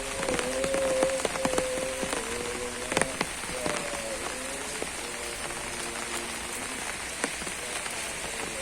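Steady rain falling on a surface, with scattered heavier drops ticking sharply through it. A soft held tone with overtones sits underneath, fading out around the middle and returning near the end.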